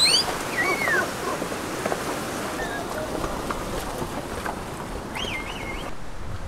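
Meltwater stream rushing over rocks as ponies wade through it, a steady rushing hiss. Short high whistled calls sound over it at the start and again about five seconds in.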